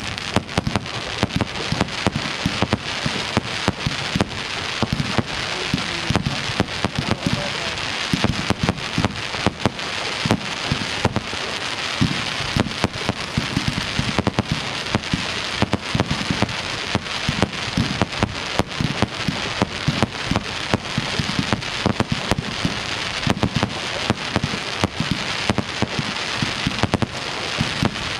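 Fireworks display: a dense, unbroken crackling like heavy rain, full of sharp pops, with repeated low thumps of shells being launched and bursting.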